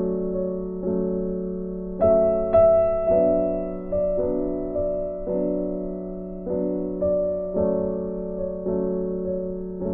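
Background music: a soft, slow piano or electric-piano piece, with gentle chords struck about once a second, each left to ring and fade.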